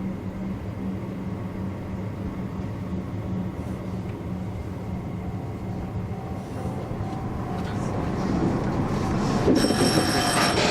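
Electric train running, heard from behind the driver's cab: steady rumble of wheels and motors that grows louder over the last few seconds. A bell starts ringing near the end.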